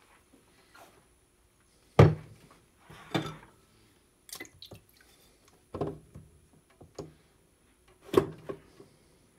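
Whetstones being lifted, set down and clamped in a metal stone holder on a wet bench: a series of hard knocks of stone on metal, four strong ones with lighter clicks between, the loudest about two seconds in.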